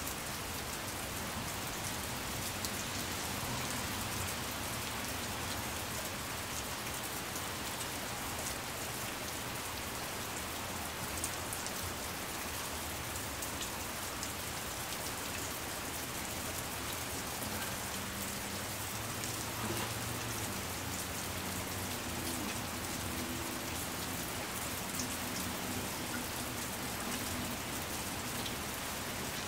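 Steady rain falling: a constant, even hiss with scattered individual drops ticking close by.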